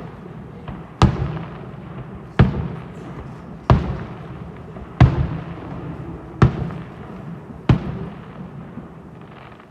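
Fireworks display: six aerial shell bursts go off one after another, evenly spaced about a second and a quarter apart. Each sharp bang trails off in a rumbling echo.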